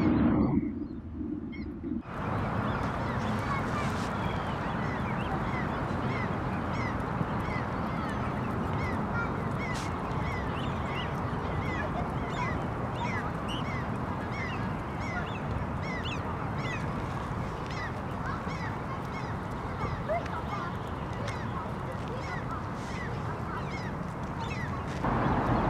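Barnacle goose goslings peeping, many short high calls repeated over and over, over a steady background rumble picked up by the camera's built-in microphone.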